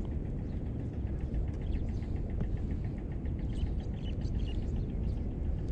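Ultralight spinning reel cranked through a lure retrieve, giving a quick, even ticking of about six to seven ticks a second over a steady low rumble. A few bird chirps come about two thirds of the way in.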